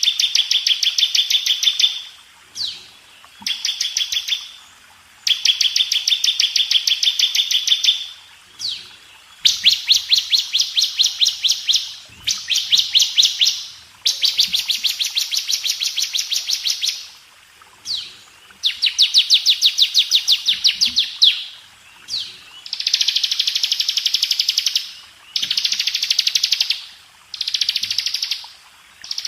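Bar-winged prinia (ciblek) singing in fast, rattling trills, about a dozen phrases of one to three seconds each with short pauses between them. This is the rapid 'ngebren' song style used as a master recording for training caged birds.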